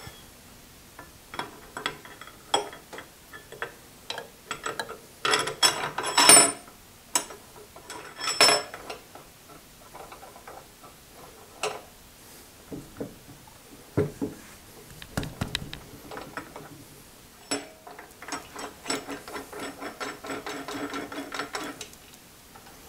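Metal clinks, knocks and clicks of bolts and hand tools being handled while the bolts of a drill-press column riser block are started. The loudest clinks come about five to eight seconds in, and near the end there are a few seconds of rapid ticking.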